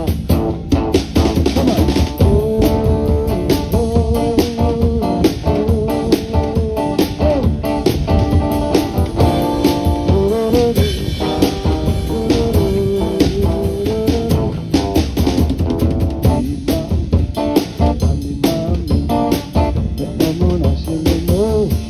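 Live rock band playing a song on drum kit, electric guitars and acoustic guitar, with a steady beat and a melody line that bends up and down.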